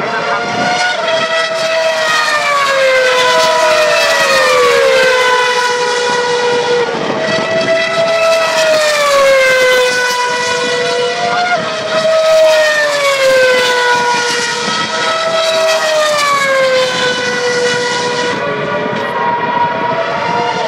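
Formula One cars' 2.4-litre V8 engines running at race speed, a high engine note that slides down and jumps back up every few seconds, with more than one car heard at times.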